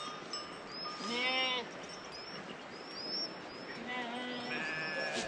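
Bleating from a grazing flock of sheep and goats: two calls, about a second in and again around four seconds in. Short high bird chirps repeat throughout.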